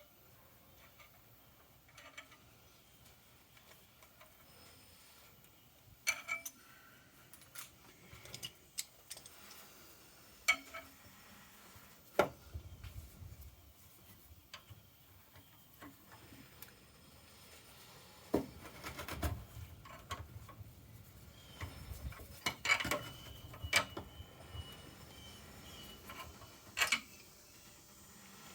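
Metal tool and hydrant parts being handled during reassembly: scattered clinks, knocks and scraping, a few of the knocks ringing briefly.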